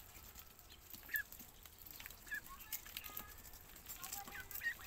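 Young Pekin ducks peeping in short, scattered calls as they feed, with faint clicks in between.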